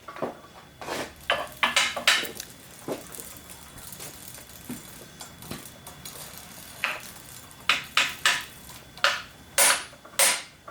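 Hammer striking a metal punch to drive a bearing back into a Bernina 217 industrial sewing machine: a series of irregular, sharp metallic taps, some in quick clusters and some spaced a second or more apart.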